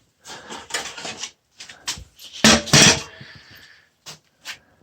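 Rubbing and clattering handling noises of hard objects, with a few clicks and a louder clatter about two and a half seconds in.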